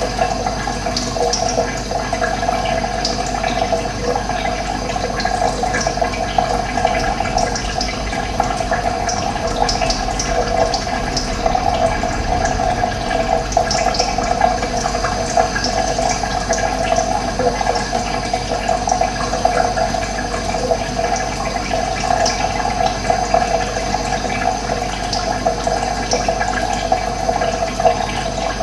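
Running water flowing steadily, with occasional short, high bird chirps scattered over it.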